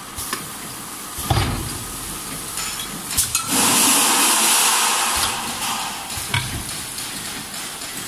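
Multi-nozzle liquid filling machine running on a bowl-can line: steady machine noise with a few clunks and clicks, and a loud hiss of about a second and a half midway that fades out.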